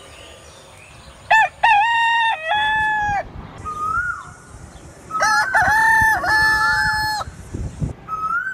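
Rooster crowing twice, each crow a few short notes running into a long held note that drops off at the end. A smaller bird calls once between the crows.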